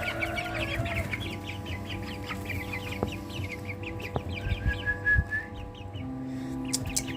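A brood of chicks peeping: a steady stream of short, quick, falling peeps over a steady hum. A few sharp clicks come near the end.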